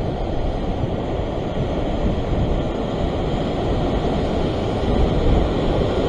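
Ocean swell washing against a rock ledge: a steady, low, rumbling wash of surf.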